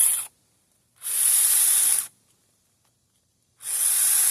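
Small battery-powered chainsaw running in short hissing bursts of about a second, with sharp starts and stops and silence between. It keeps cutting out, which the owner puts down to a weak battery.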